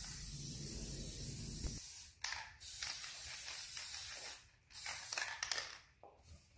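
Aerosol can of Gorilla spray adhesive spraying in hissing bursts of a second or two with short breaks between, stopping shortly before the end.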